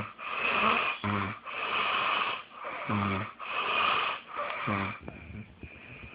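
Loud snoring: about three quick breath cycles, each a short low buzzing snore followed by a longer wheezy, hissing breath, repeating roughly every two seconds. The snoring stops about five seconds in, leaving softer, irregular breathing noise.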